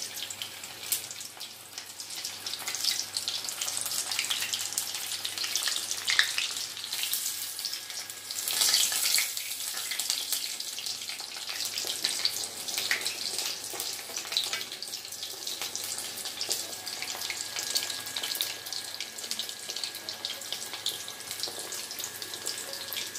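Coated chicken pieces deep-frying in hot oil in a wok: a steady sizzle with continual small crackles.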